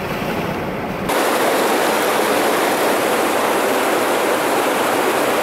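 Low road rumble inside a moving car for about the first second. Then a sudden cut to a steady, loud rushing hiss of outdoor noise with little bass.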